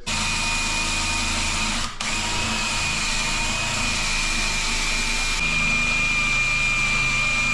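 Electric drill running steadily with a constant high motor whine, stopping briefly about two seconds in and then starting again, typical of drilling into a wall safe to open it.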